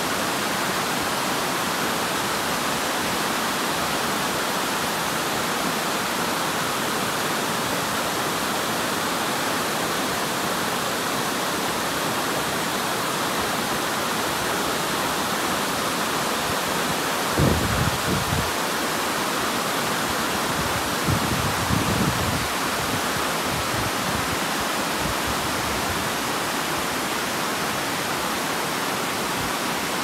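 Water pouring steadily over a stepped weir and rocky cascade, an even rushing noise. There are two brief low surges a little over halfway through.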